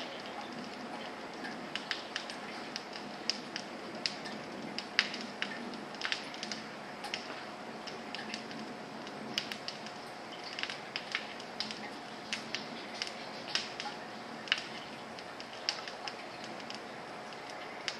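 Irregular sharp ticks and clicks, roughly two a second and uneven in loudness, over a steady hum.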